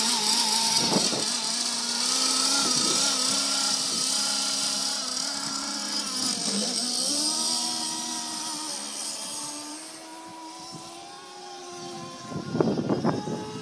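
.46-size glow (nitro) engine of an RC racing boat running at a steady high pitch, dropping in pitch about six and a half seconds in as the boat is set in the water, then rising again and fading as the boat races away. A few short loud sounds break in near the end.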